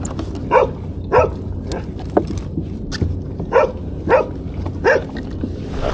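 A dog barking: several short barks, two close together early and three more after a pause of about two seconds.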